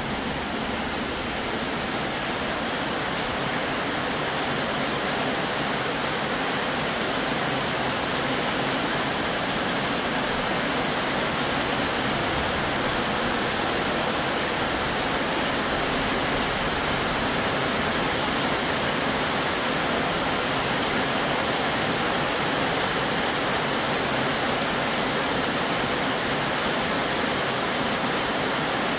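Heavy rain pouring steadily, heard from under a corrugated metal roof, a loud even rush with no let-up.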